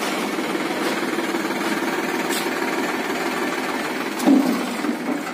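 Sonalika DI 47 RX tractor's diesel engine running steadily while the trolley is tipped to dump its load of soil. A short, louder sound comes about four seconds in.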